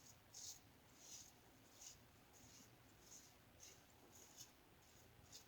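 Faint, short scraping strokes of a half double-edge blade in a Firm Blade razor cutting lathered stubble, about one stroke every two-thirds of a second.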